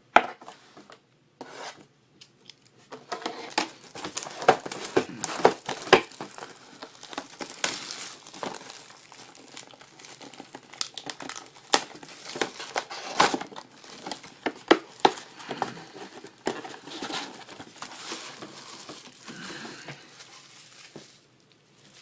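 Plastic packaging on a sealed box of trading cards and its packs crinkling and tearing as it is opened, with dense irregular crackles and sharp snaps. It starts about three seconds in.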